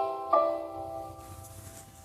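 Samsung Galaxy S25 Ultra alert tone ending: a bell-like chord struck about a third of a second in, fading away slowly.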